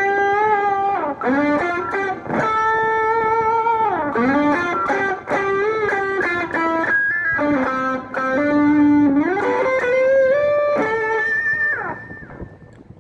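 Electric guitar played through an overdrive/distortion pedal, giving a warm, analog-style crunch. It plays a slow lead melody of bent-up notes held with vibrato, and the last note fades out near the end.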